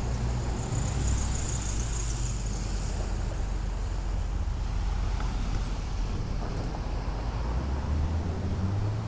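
Street traffic running past, with a steady low rumble of wind buffeting the microphone.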